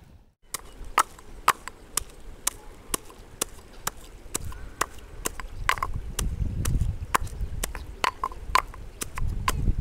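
Stone pestle pounding garlic, shallots and turmeric in a stone mortar to make masala: a steady run of sharp knocks, about two a second.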